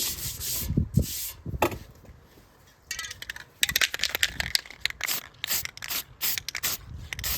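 Aerosol guide coat being sprayed onto sanded body filler: a run of short hissing spray bursts starting about three seconds in, dusting the surface to show low and high spots.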